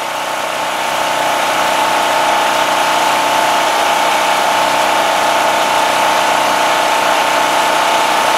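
Portable generator engine running steadily, growing louder over the first second or so, then holding an even drone.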